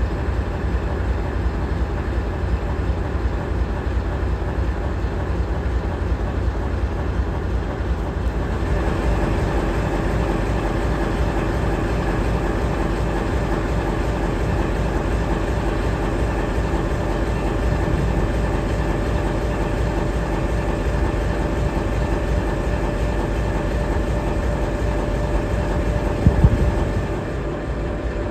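CSX CM44AC diesel-electric locomotive standing and idling, with a steady low engine drone. About eight seconds in, a higher steady whine joins. A brief low thump near the end is the loudest moment.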